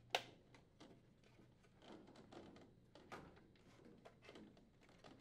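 Near silence with faint handling sounds: one sharp click right at the start, then soft clicks and rustling of wires being pushed under the plastic retaining clips on a washer control board housing.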